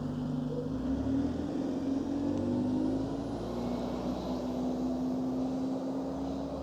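Alexander Dennis Enviro200 Dart single-decker bus running, heard from inside the cabin: the engine and drivetrain pitch rises a little about two seconds in, then holds steady.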